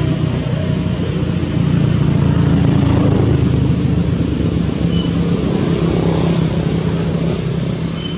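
A motor engine running steadily off-camera, a low hum that swells a little about two seconds in and eases off near the end.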